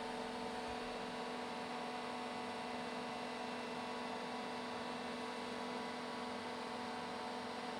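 Steady electrical hum of a large sheet-metal press with several fixed tones over a faint hiss, even in level throughout, with no impact or stroke heard.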